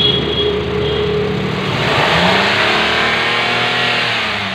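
Suzuki Alto 660's three-cylinder engine running just after start-up, revved up once about two seconds in and dropping back. There is no squeal from the freshly tightened fan belt: the belt noise is cured.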